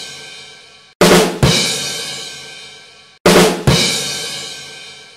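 Intro music stinger of heavy drum and cymbal hits. Each hit is a crash followed closely by a bass-drum thud, then rings out and fades over about two seconds. Fresh hits come about a second in and again about three seconds in.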